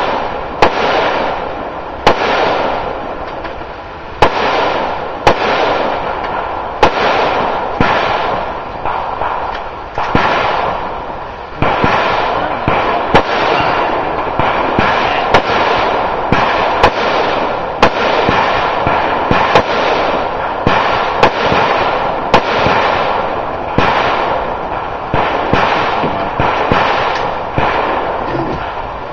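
A steady string of gunshots, about one every one to two seconds, each sharp crack trailing off in echo.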